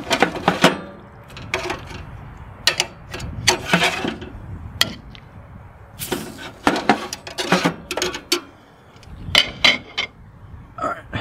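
Irregular sharp metal clanks and rattles as steaks are laid on a gas broiler's steel cooking grate and the grate is handled, over a steady low rumble.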